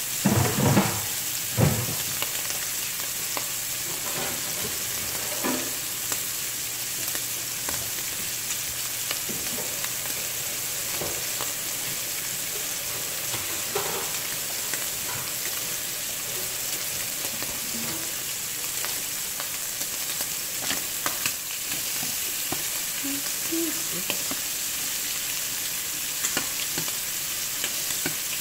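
Shrimp sizzling steadily in hot oil in a stainless steel pan, with a few loud clatters in the first two seconds and light scattered clicks after.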